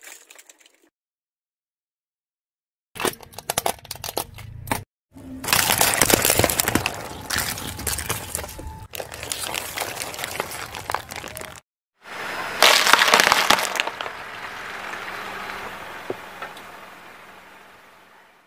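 Toys being crushed: sharp cracking and snapping. Scattered clicks about three seconds in are followed by dense crackling, a sudden silence, then another loud burst a little past the middle that fades away.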